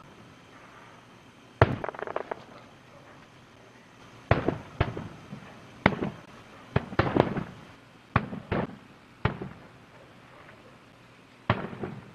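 Aerial fireworks shells bursting: about ten sharp bangs, some coming in quick clusters, each followed by a short rumbling, echoing tail.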